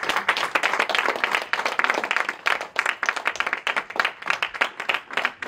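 Audience applauding: many hands clapping in a dense, unbroken patter.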